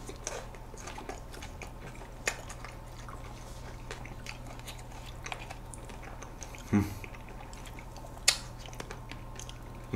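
Close-miked eating of ice cream cake: wet chewing and soft mouth clicks, with a brief voiced hum about seven seconds in and a sharp click a little after eight seconds as a metal fork digs into the cake.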